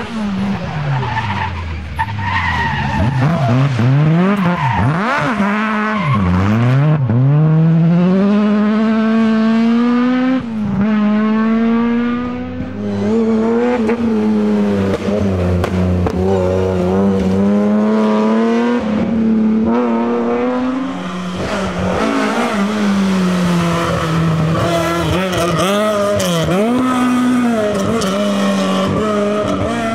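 Historic rally cars, among them Ford Escort Mk2s, driven hard through tight bends: engines revving, the pitch repeatedly climbing and then dropping with gear changes and lifts for the corners, with some tyre noise.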